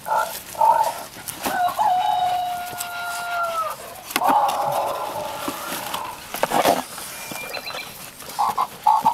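Dogs tearing at a cardboard mailing box, with scattered short ripping and scuffing noises. An animal makes a long, slightly falling call about one and a half seconds in, and a shorter, rougher one around four seconds in.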